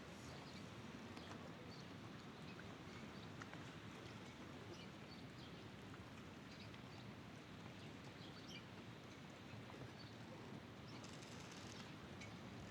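Faint, steady open-air background wash with scattered small bird chirps.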